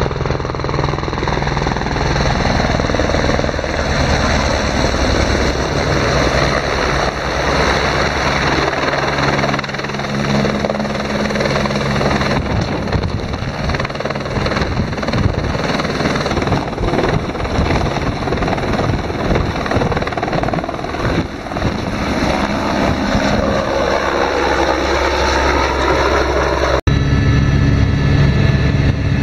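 Light turbine helicopter running loudly: the rotor's steady low beat over the turbine's noise as it flies in and then runs on the pad. Near the end, after a sudden cut, a steadier, heavier drone heard from inside the helicopter in flight.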